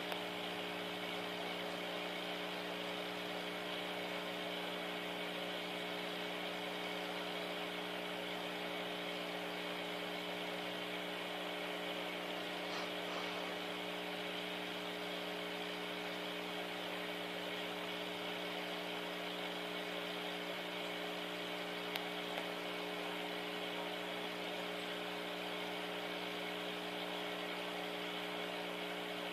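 A steady electrical hum: several low steady tones under an even hiss, with a faint click about 22 seconds in.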